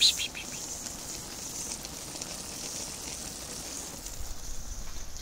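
Pan of Uzbek plov (lamb, carrot and rice) sizzling softly on low heat, with steam venting through holes poked in the rice. There is a short run of quick ticks at the very start, then an even, steady hiss with faint crackle.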